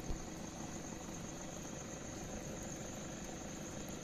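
Night insect chorus, crickets trilling in one steady high-pitched band, over a steady low rumble.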